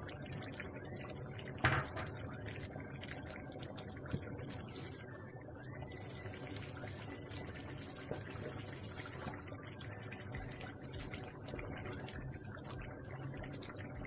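Meat curry masala simmering in a nonstick frying pan, a steady low bubbling. There is one sharp knock a couple of seconds in, and in the second half a spoon stirs through the pieces.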